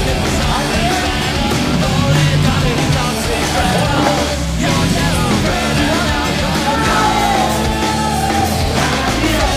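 Loud rock music with vocals, a soundtrack laid over the footage.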